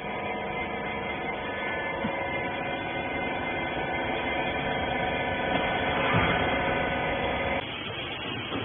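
Hydraulic rags baler's pump and motor running with a steady multi-toned hum, growing slightly louder, then dropping off suddenly about seven and a half seconds in.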